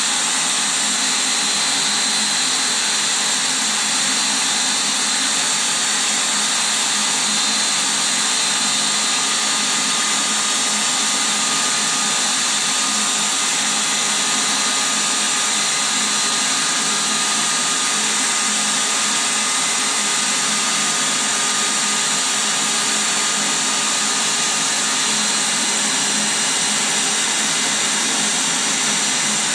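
Electric air pump running steadily, blowing air into an inflatable: an even rush of air with a faint high whine from the motor.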